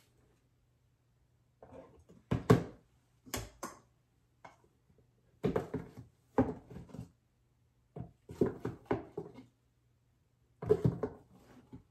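Flour being scooped from a plastic bin into a measuring cup: a plastic scoop knocks and scrapes against the bin and cup in several short spurts, over a faint steady low hum.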